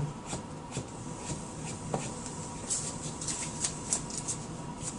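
Hands handling and rubbing wooden boards during a glue-up: soft rubbing with scattered light clicks and taps, the sharpest taps about half a second, one second and two seconds in.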